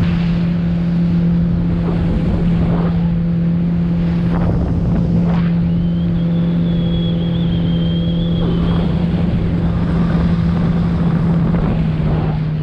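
Boat motor running at a steady pitch while under way, with wind noise on the microphone.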